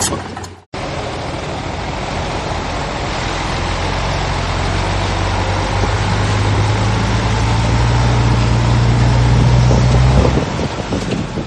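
Heavy diesel engine of earthmoving machinery running steadily with a low drone and a hiss over it. The sound cuts out for a moment just before one second in, builds slowly, then eases off about ten seconds in.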